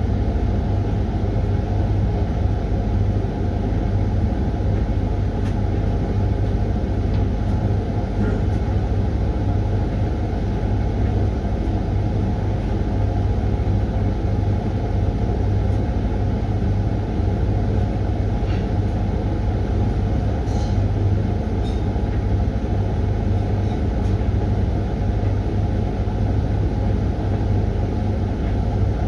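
Hoover washing machine running its Refresh cycle: a steady, even motor hum with no pauses.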